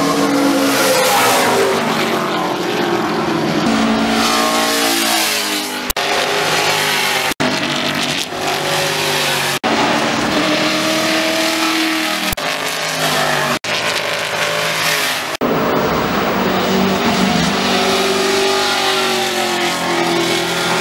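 V8 engines running hard and loud, their pitch rising and falling as they rev, shift and pass. The sound breaks off and changes abruptly about six times.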